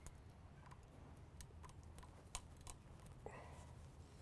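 Faint, irregular metal clicks and taps as a C-clamp and locking pliers are set and tightened on a steel pipe, one tap a little louder about halfway through, over a low steady hum.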